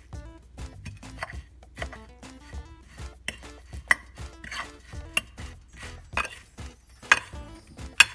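Kitchen utensil knocking and clinking against a dish while chicken strips are handled in breadcrumbs, with several sharp knocks, the loudest about four, five, seven and eight seconds in. Background music plays underneath.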